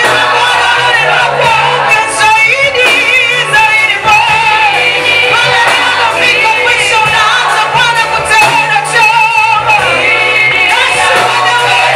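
Gospel worship song sung with vibrato over a band accompaniment, played loud and without a break.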